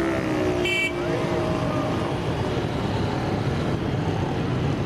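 Busy street noise: motorcycle and car engines running close by, with crowd voices mixed in and a short high beep less than a second in.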